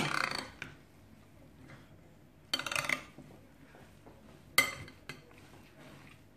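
Spoon clinking and scraping against a glass mixing bowl while stirring diced raw chicken, onion and tomato juice, in three short bouts about two seconds apart.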